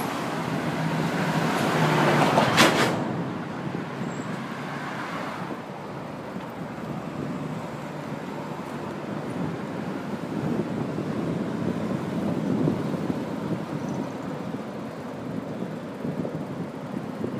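Road traffic from trucks and cars passing close by, loudest in the first three seconds, then a quieter, steady rush of traffic and wind noise.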